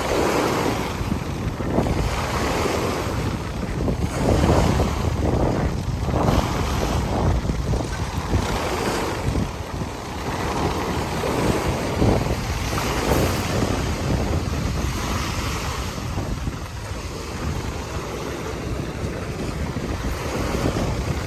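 Small waves breaking and washing up on a sandy lagoon beach, surging every second or two, with strong gusting wind buffeting the microphone and adding a low rumble.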